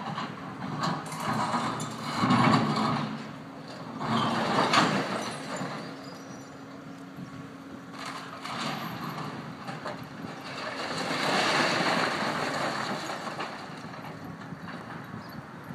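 Excavator demolishing a brick building: a steady engine drone under repeated bouts of rumbling and scraping as masonry is torn down and falls. The bouts come in quick succession over the first five seconds, again about eight seconds in, and the longest about eleven to thirteen seconds in.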